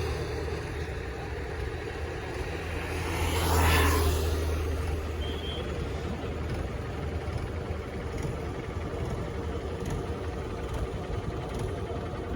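Steady running noise of a road vehicle on the move: engine and tyre rumble. Another vehicle passes close by about four seconds in, its sound swelling and fading.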